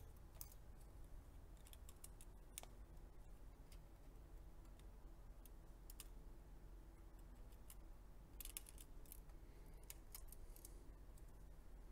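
Faint, scattered small clicks and taps from gloved fingers handling cables and plastic connectors inside an opened Acer Predator Triton 500 SE laptop chassis, with a quick run of clicks about eight and a half seconds in.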